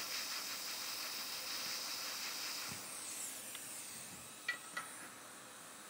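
Hot air rework station blowing a faint, steady hiss of air onto a chip on a logic board. The hiss fades about four to five seconds in as the nozzle is pulled away, with two light clicks shortly after.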